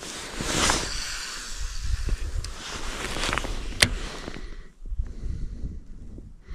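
Wind rumbling on the microphone, with a few bursts of hiss and one sharp click a little under four seconds in.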